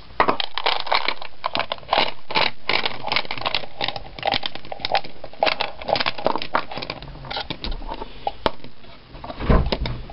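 Cast lead rifle bullets clicking and rattling against each other in a quick, irregular run as they are handled together, with a low thump near the end.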